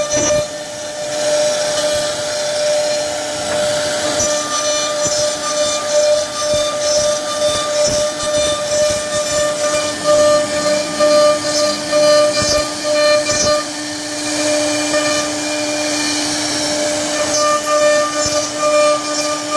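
CNC router spindle running with a steady, high whine while its router bit cuts into a wooden panel. Over the whine, the noise of the cutting rises and falls as the bit moves through the wood.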